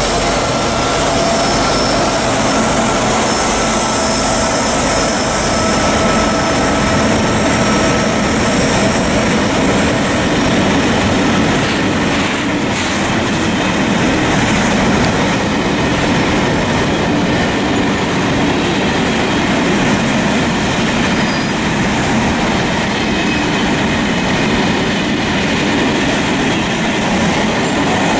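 Freight train hauled by three VR Class Dv12 diesel locomotives passing close by, loud and steady. A few steady high tones sound over the locomotives' engines and fade after about eight seconds. The covered wagons then roll past with a steady noise of wheels on rails.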